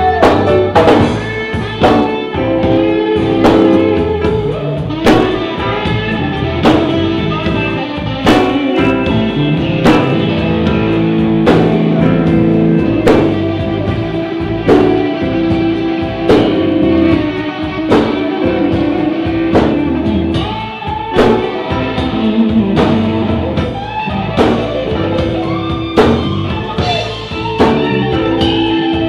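Live blues-rock band playing: electric guitars over bass and a drum kit keeping a steady beat.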